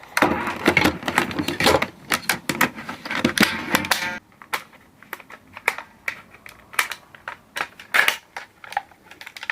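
Airsoft M4 receiver parts being handled and fitted together by hand. The first four seconds are dense scraping and rattling, then sparser, irregular plastic-and-metal clicks and knocks.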